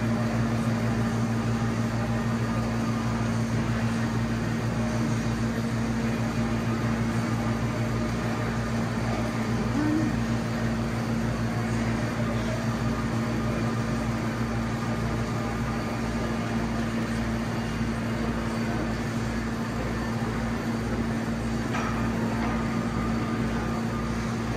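Steady machine hum with two held tones and a low throb pulsing about twice a second.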